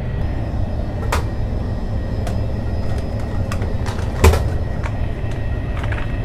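Steady low rumble of a KTX high-speed train carriage running at speed. A few light clicks sound over it, then a sharper knock about four seconds in as a snack packet is taken from the vending machine's delivery slot.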